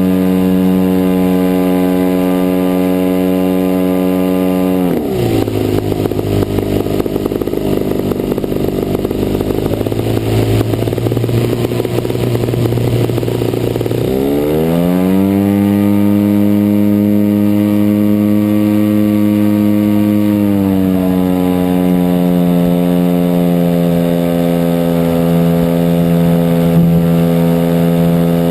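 DLE 55cc single-cylinder two-stroke petrol engine of a radio-controlled Cessna 182 model running at high throttle. About five seconds in it is throttled back to a low, rougher speed. It opens up again with a steep rising pitch at around fourteen seconds, then eases slightly and holds steady.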